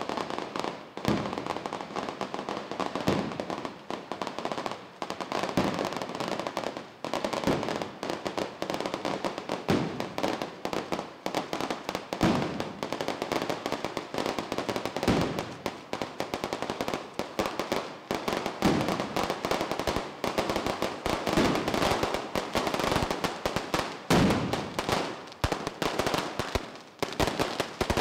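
A long string of castagnole firecrackers laid in a line along a paved street going off in a rapid, continuous crackle of bangs, with heavier single blasts every few seconds.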